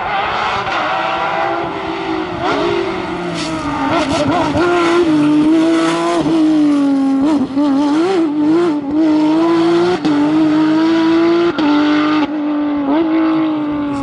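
Porsche 997 GT3 rally car's naturally aspirated flat-six engine running hard at high revs. Its pitch dips briefly and climbs again several times.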